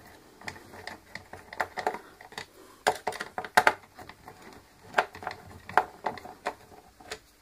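Irregular light clicks and taps, with a few sharper ones in the middle, from the plastic housing and small screws of a Clatronic DB 3329 steam iron being handled and unscrewed during disassembly.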